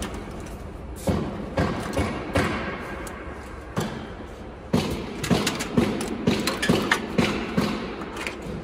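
Irregular knocks and thumps of cables and hoses being pulled out of a laser cutting machine's metal frame and dropped on the floor, with a quicker run of taps in the second half.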